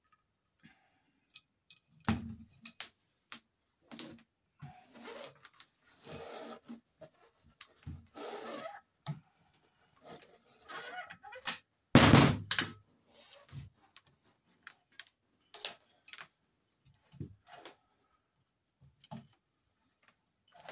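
A homemade metal crossbow being cocked by hand with a looped rope cocking cord: rope rustling and sliding, scattered metal clicks and knocks, and one heavy thunk about twelve seconds in.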